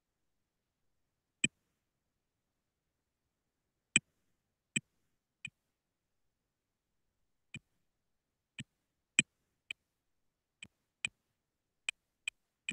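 Computer keyboard keystrokes and mouse clicks: about a dozen short, sharp clicks, spaced irregularly, as a chemical formula is typed and edited.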